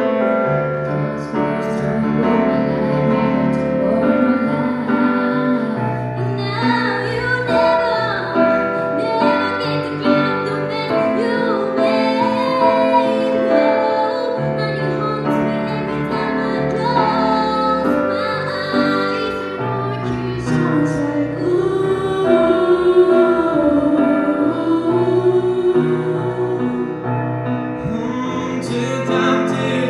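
A group of female singers performing a song live with grand piano accompaniment, the voices carrying a wavering, vibrato-laden melody over sustained piano chords.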